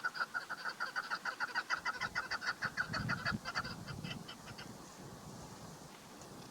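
Female chukar partridge calling: a rapid, even series of short clucking notes, about six or seven a second, that fades away after about four and a half seconds.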